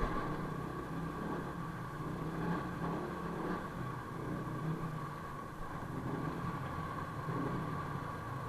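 Yamaha NMAX scooter's engine running steadily, a constant low hum.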